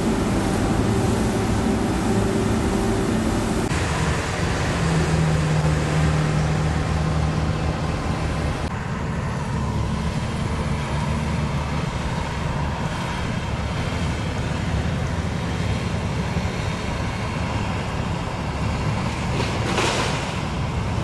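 Steady drone of diesel demolition machinery: a Caterpillar tracked excavator's engine running as it tears at the building, with the hiss of a dust-suppression mist cannon spraying in the first few seconds. A short burst of noise near the end.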